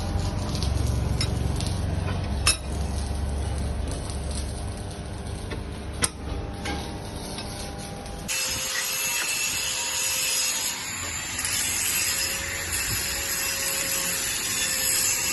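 Metal-working machinery in a workshop, running with a low hum and two sharp metallic clicks. About eight seconds in the sound cuts abruptly to a steady hiss with a faint high tone.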